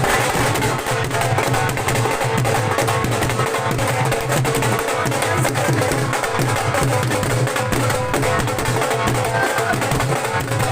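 Dhol drums played by a group in a continuous, dense drumming rhythm, loud and unbroken throughout.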